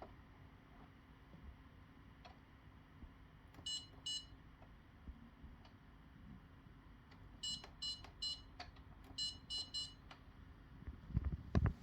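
Whirlpool dishwasher control panel beeping as its buttons are pressed: short high-pitched beeps, two about four seconds in, three around eight seconds and four in quick succession just after. A few dull knocks follow near the end.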